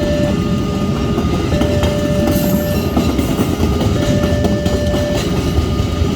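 Electronic railway level-crossing alarm sounding an alternating two-tone pattern, each tone held about a second and a quarter, over a steady low rumble.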